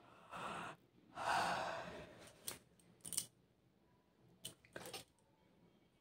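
A woman yawning: a short breath, then a longer, louder breathy yawn, followed by a few lip smacks and mouth clicks as she closes her mouth.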